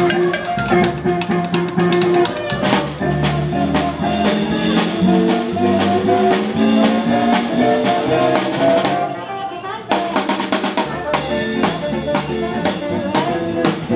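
A small live band playing: guitar, upright double bass and a small drum kit with snare and bass drum keeping a steady beat. The drums drop out briefly about nine seconds in.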